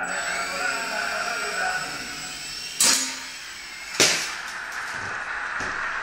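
Blade BO-105 CB CX coaxial micro RC helicopter's electric rotor motors whining, the pitch rising as they spool up at the start. Two sharp knocks come about a second apart near the middle.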